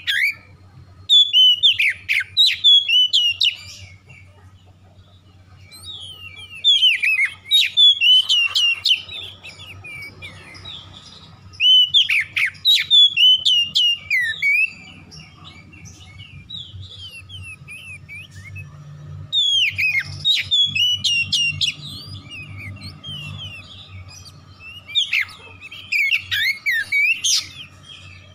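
Oriental magpie-robin (kacer) singing loudly, in five bursts of quick, varied whistled phrases of two to three seconds each, with pauses of a few seconds between them.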